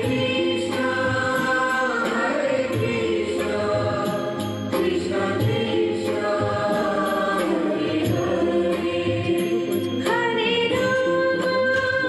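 Background music: a Bengali devotional song, voices singing long held notes over instruments with a steady beat.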